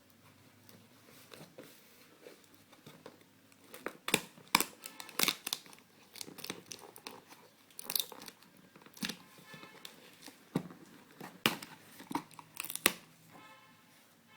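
Box and packaging being torn open by hand: a run of sharp, irregular tearing and crinkling noises that starts about four seconds in and goes on almost to the end.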